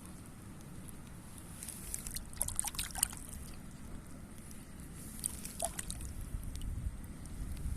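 Water splashing and sloshing in two short flurries, about two seconds in and again near six seconds, over a steady low rumble.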